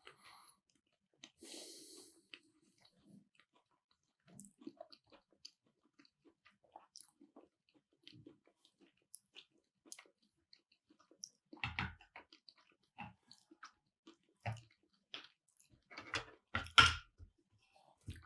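A person chewing keto sushi made with cauliflower and cheese, with soft wet mouth sounds and small clicks. A few louder smacks come in the second half.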